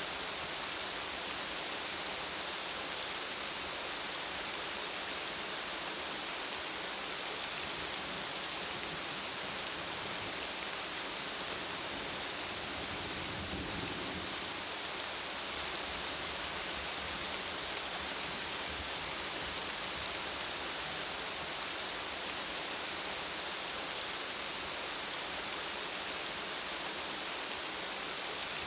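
Steady rain falling, an even, unbroken hiss, with a faint low rumble about halfway through.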